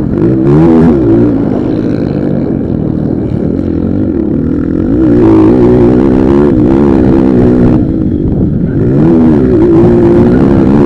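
Motocross bike engines racing, repeatedly revving up and falling back as they are throttled, with several engines overlapping.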